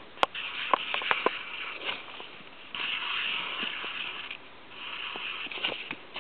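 Handling noise on a small camera: a finger rubbing over the body close to the built-in microphone, heard as scratchy rustling in two stretches, with scattered small clicks and knocks.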